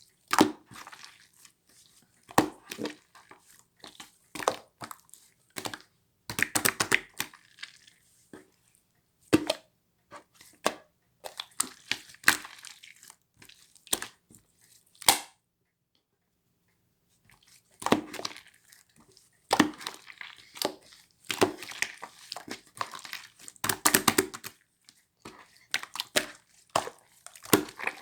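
Crinkling, crackling rustle of handled material such as a wrapper, in irregular bursts of sharp clicks and rustles, stopping dead for about two seconds just past the middle.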